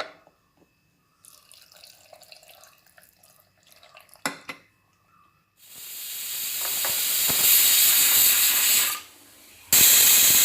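A stovetop pressure cooker whistling as steam hisses out of its weight valve. The hiss builds up loud from about halfway through, breaks off, then starts again suddenly near the end. These are the whistles counted to time the cooking of the tomatoes. Before that there are only faint clinks and a single knock.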